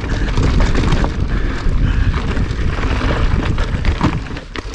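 Mountain bike rolling fast down a dirt singletrack: wind buffeting the microphone over the rumble and rattle of tyres and frame on the trail, with short knocks from roots and rocks.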